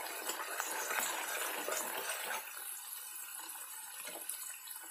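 Spice paste sizzling and bubbling in hot oil in a metal kadai as a masala is fried down, stirred with a slotted steel spatula that gives a few light scrapes against the pan. The sizzle eases a little about halfway through.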